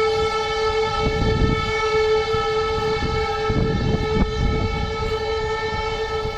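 Civil-defence alarm sirens sounding one steady, unwavering tone in a siren test. Low rumbling noise comes and goes underneath.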